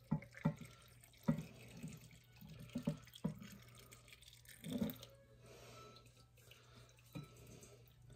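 Hot water poured into glass canning jars of soup, with several short knocks from the jars and pouring vessel. The pouring thins out about five seconds in.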